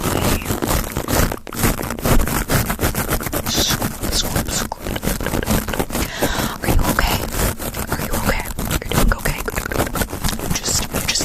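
Close-up scratching and scraping, rapid and continuous, as an ASMR trigger.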